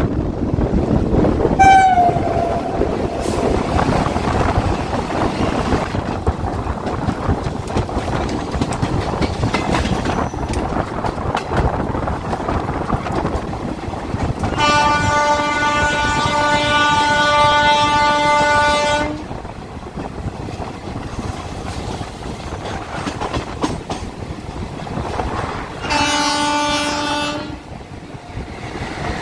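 An Indian Railways passenger train running at speed, heard from an open coach door: a steady rumble with the clatter of wheels over the track. A locomotive horn gives a short falling blip about two seconds in, a long steady blast of some four seconds about halfway through, and a shorter blast near the end.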